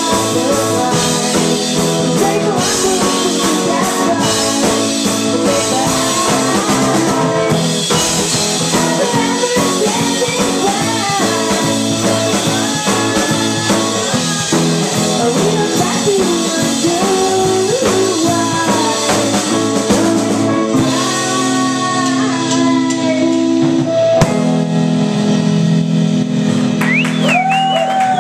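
A live indie rock band playing, with electric guitar, bass, drums and keyboards under a sung vocal. About twenty seconds in, the drumming thins out and held chords ring.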